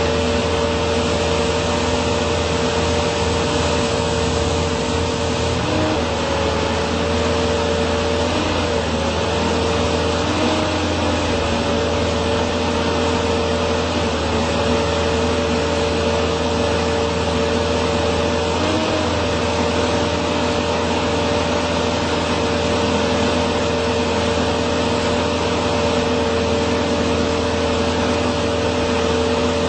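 Genie S45 telescopic boom lift running its hydraulics as the boom moves: a steady motor-and-pump whine over a low hum, the pitch wavering briefly a few times as the load on the pump shifts.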